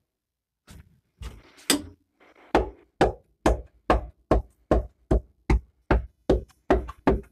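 Steady knocking: a few scattered knocks and scrapes, then from about two and a half seconds in about a dozen sharp, evenly spaced strikes, a little over two a second.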